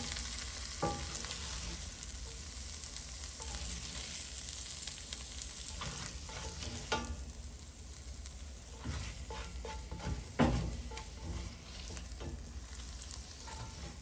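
Silicone spatula scraping caramelized onions out of a cast-iron skillet into a bowl, with scattered light knocks against the pan and bowl over a faint sizzle from the hot pan. The loudest knock comes about ten and a half seconds in.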